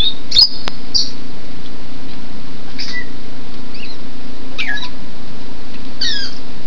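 Heavy rain hissing steadily on an outdoor aviary, with short high chirps and whistles from African grey parrots, several in turn, some falling in pitch. Two sharp clicks sound about half a second in.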